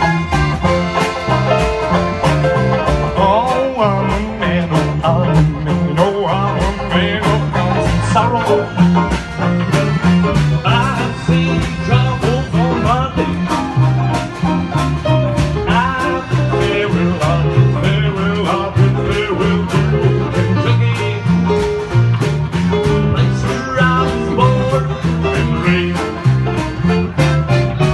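Live acoustic string band playing a bluegrass-style instrumental passage, with plucked guitar and banjo on a steady beat over a stepping bass line and a lead line that slides in pitch.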